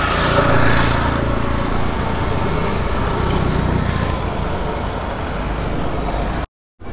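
Steady road noise of a vehicle moving along a road: a continuous low rumble with hiss, cut off briefly near the end.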